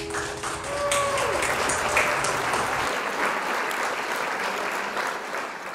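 Audience applauding at the end of a country song, as the music's last sustained chord stops within the first second. A brief falling voice cuts through about a second in, and the clapping fades near the end.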